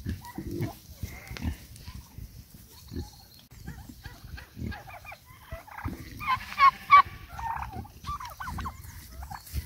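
Farm poultry calling: warbling calls about six seconds in and again near the end, over low, short knocks.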